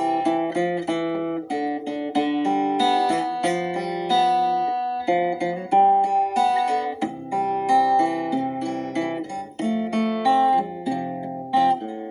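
Instrumental acoustic guitar music, plucked notes and chords played at a gentle pace.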